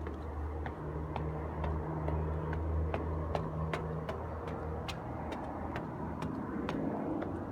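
Footsteps on hard stairs, sharp evenly paced steps about two a second, over a steady low hum.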